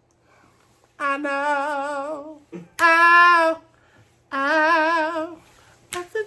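A woman singing unaccompanied: three long held notes with a wide vibrato, the second one the loudest and the last two pitched a little higher than the first.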